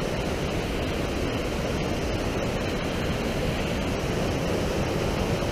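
Mountain creek running high, whitewater rushing over boulders: a loud, steady rush of water with no let-up.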